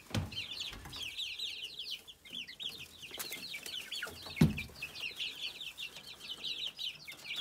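A brood of young chickens peeping without a break: many short, high cheeps, each falling in pitch, overlapping several to the second. A single low thump stands out about four and a half seconds in.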